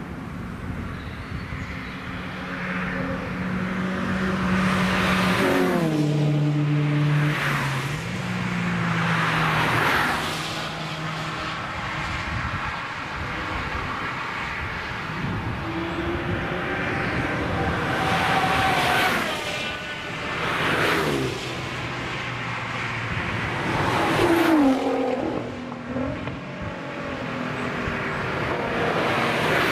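Cars passing one after another at speed on a race track, about five or six pass-bys, with engines at high revs. Each engine note drops in pitch as the car goes by.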